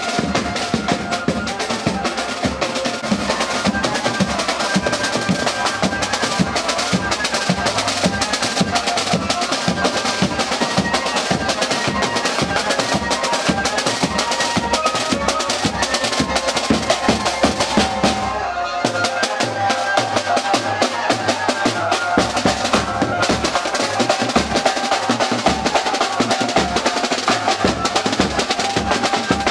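Music with fast, busy drumming under a sustained melody line. About nineteen seconds in, the deep bass drops out for a few seconds, then returns.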